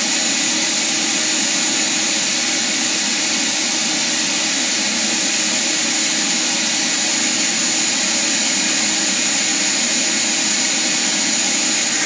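Bee vacuum running steadily, sucking honeybees off the comb, a constant rush of air with a steady high whine from its motor.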